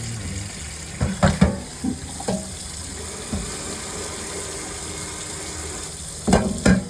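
Water running from a tap into a sink, with dishes and pans clattering and clanking against each other: a cluster of knocks about a second in, a few single ones after, and two more near the end.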